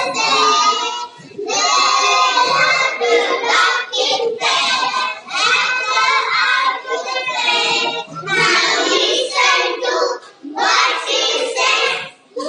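A young child singing, in phrases broken by short pauses.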